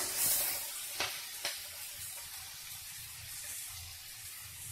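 Chopped onions sizzling in hot oil in a kadhai, with two clicks of a steel spatula against the pan about a second in; the sizzle then settles to a soft hiss.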